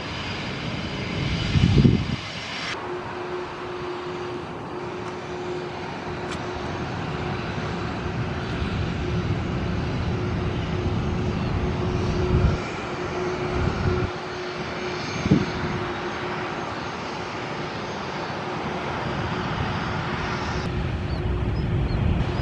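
Jet engines of a wide-body twin-jet airliner on approach and landing, a steady jet noise that changes abruptly about three seconds in, with a steady hum through the middle. Brief low thumps of wind on the microphone come through a few times.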